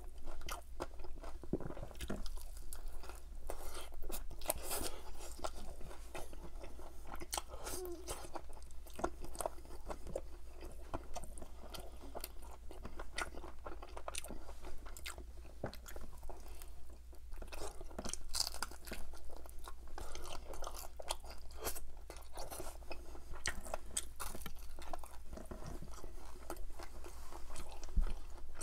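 Close-miked chewing and biting of crispy-skinned chicken drumsticks coated in butter chicken sauce: irregular crunches and mouth clicks without pause.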